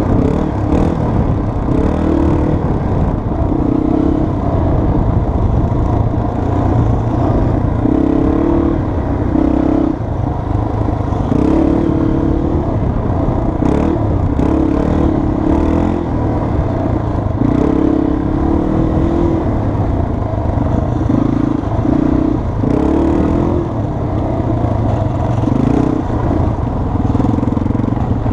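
Yamaha TT-R230 dirt bike's air-cooled single-cylinder four-stroke engine running under way on a sandy trail, its note rising and dropping repeatedly with the throttle and gear changes, over constant wind rumble.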